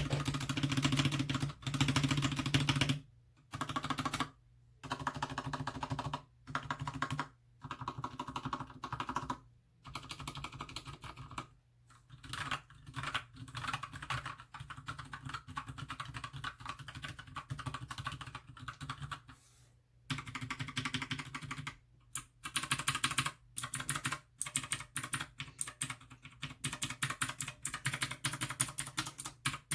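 Mechanical keyboard with blue switches being typed on: rapid keystrokes in bursts of a second or more, broken by short pauses.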